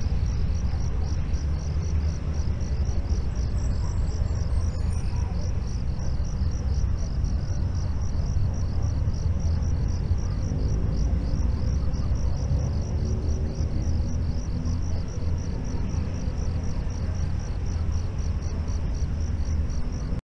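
Insects chirping in a fast, even pulsing rhythm over a steady low rumble. The sound cuts off abruptly right at the end.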